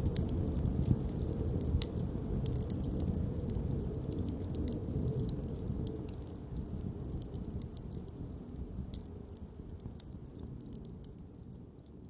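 Wood campfire crackling, with many sharp irregular pops and snaps over a steady low rush of the flames, fading out toward the end.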